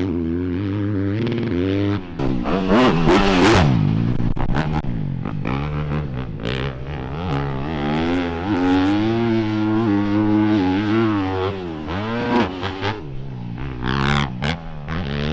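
Yamaha four-stroke single-cylinder motocross bike being ridden hard, its engine revving up and dropping off again and again through turns and jumps.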